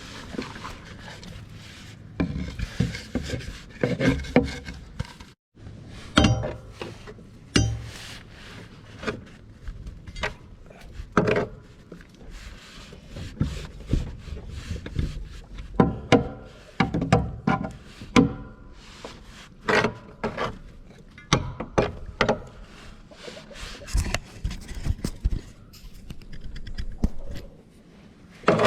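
Breaker bar scraping and knocking clumped wet grass off the underside of a Hustler Raptor zero-turn mower deck, in irregular scrapes and knocks, with a brief pause about five seconds in.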